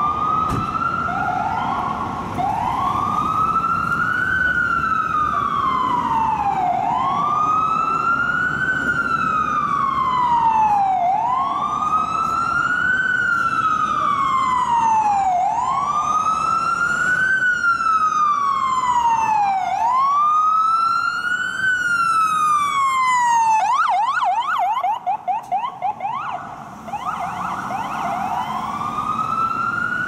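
Ambulance's electronic siren on wail, sweeping slowly up and down about every four seconds. Near the end it switches for a few seconds to a fast yelp, then goes back to the wail, over a low rumble of traffic.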